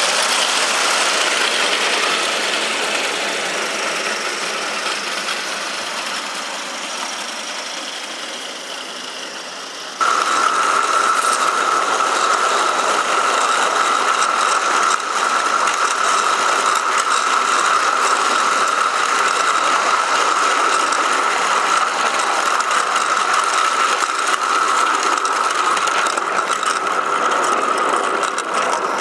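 Wheels of a Gauge 1 live-steam model train rattling and clicking along the track, heard from a camera riding in an open wagon. About ten seconds in it jumps louder, and a steady high-pitched tone runs under the rattle until near the end.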